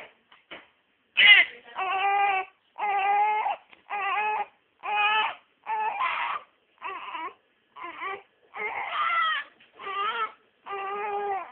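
A newborn baby about five weeks old crying in a steady run of short rhythmic wails, roughly one a second, after a brief pause at the start. He is unhappy at being swaddled and wants to be held.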